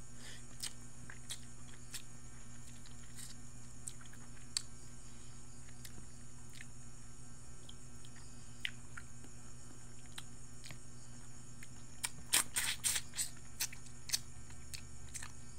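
A person chewing food close to the microphone while eating rice by hand, with scattered small mouth clicks and smacks and a short run of louder clicks about twelve seconds in, over a steady hum.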